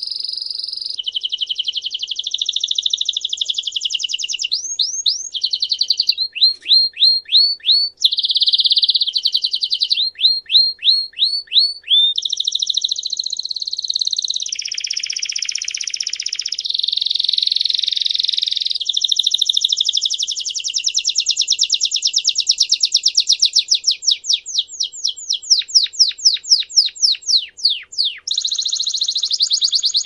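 Belgian canary singing its campainha (bell) style song without a break: long trills and rolls alternating with runs of quick descending whistled notes, several times over.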